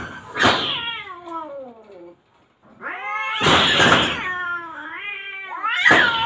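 Cats yowling at each other in an aggressive threat standoff. A long yowl slides down in pitch, and after a brief pause a rising yowl breaks into a harsh screech. Another harsh screech comes near the end.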